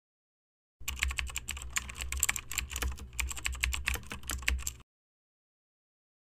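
Rapid typing on a computer keyboard, a dense run of key clicks over a low hum, starting about a second in and stopping about four seconds later.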